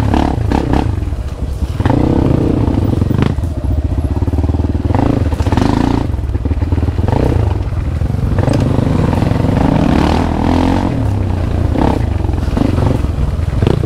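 Dirt bike engine running at low, uneven revs on a rough trail, with scattered knocks and clatter from the bike.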